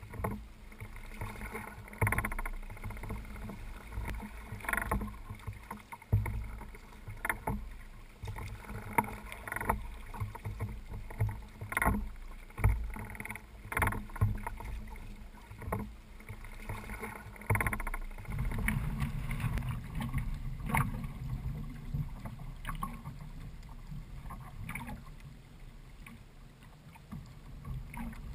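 Water slapping and splashing irregularly against the hull of a Hobie Adventure Island sailing kayak under way in choppy water. About two-thirds of the way in, a steadier low rumble sets in under the splashes.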